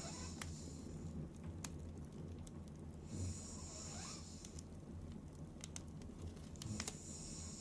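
A sleeping woman breathing in light, hissing snore breaths, one about every three and a half seconds: one fading about a second in, another around three seconds, a third starting near the end. Faint clicks are scattered between the breaths.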